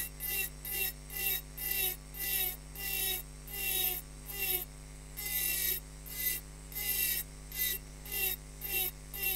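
Rotary engraving burr grinding into a wine glass in short repeated strokes, about two a second, each pressed deep and flicked off shallow to cut a rose petal, with a brief falling squeal at each stroke over a steady low hum.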